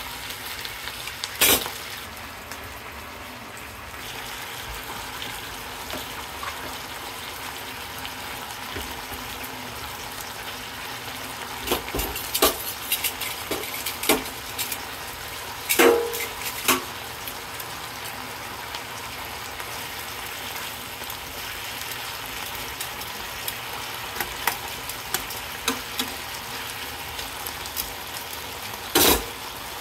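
Chicken pieces and vegetables frying in a nonstick pan with a steady sizzle. Scattered sharp knocks and clicks of a utensil against the pan cut through it, a cluster around the middle and a loud one near the end, as food is added and stirred.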